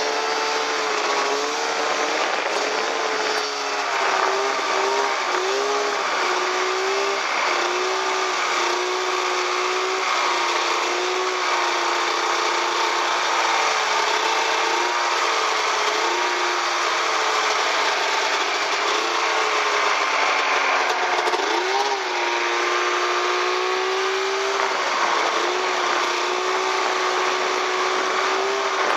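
Snow bike's engine running under load through deep snow, its pitch rising and falling as the throttle is worked, over a steady rushing hiss of track and snow.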